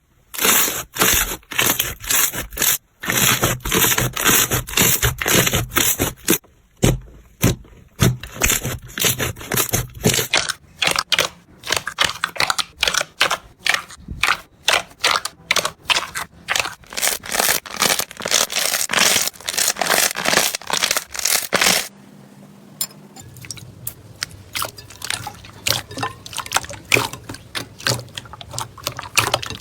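Slime being pressed and squeezed by hand, giving rapid trains of crackling clicks and pops. About two-thirds of the way in the sound changes to softer, sparser clicks.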